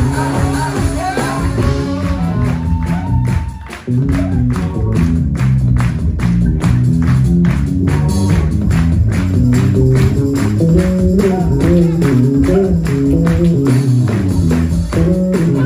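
Live band music heard from the audience: keyboards, electric bass and drums playing, with a sudden break about three and a half seconds in, after which the band comes back in on a steady beat of about four hits a second.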